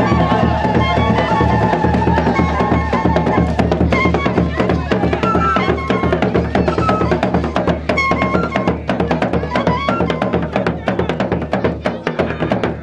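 Gourounsi traditional drums played fast, with many dense overlapping strokes over a steady low pulse, and short high-pitched notes sounding now and then above them.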